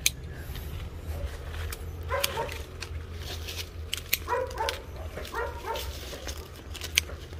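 A dog barking in a few short groups, with sharp clicks between the barks from pruning shears snipping branches.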